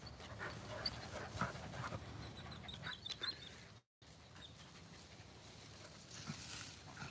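Faint sounds of medium poodles close by: light panting and scuffling in the grass, mostly in the first few seconds. The sound drops out completely for a moment about four seconds in, and little is heard after.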